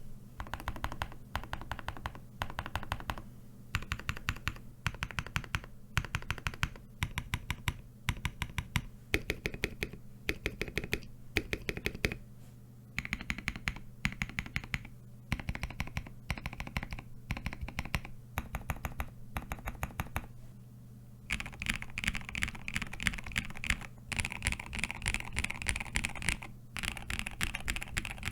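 Typing on a custom KBD67 Lite R3 mechanical keyboard with a POM plate, KAT Alphas keycaps and lubed, filmed Durock POM switches, in short bursts of keystrokes with brief pauses between them. For the last several seconds the typing becomes faster and denser.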